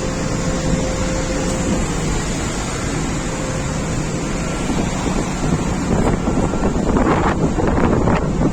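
Strong wind blowing, a steady rushing noise with a low rumble. It grows gustier and louder, buffeting the microphone, in the last couple of seconds.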